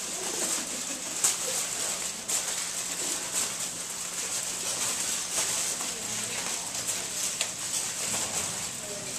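Aluminium foil being crinkled and shaped by hands: scattered small irregular crackles over a steady hiss, with one sharper crackle about a second in.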